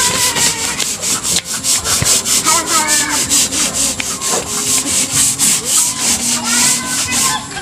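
A scouring pad scrubbed quickly back and forth on a painted board wall: a rhythmic scratchy rasping of about five strokes a second that stops just before the end.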